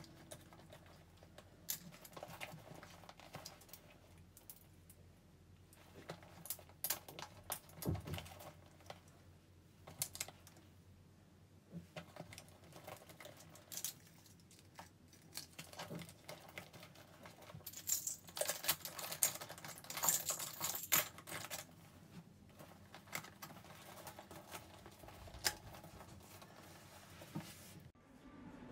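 Faint, scattered clicks, taps and rustles of small items such as plastic cases and keys being handled and set into a leather handbag, with a busier stretch of rustling about two-thirds of the way through.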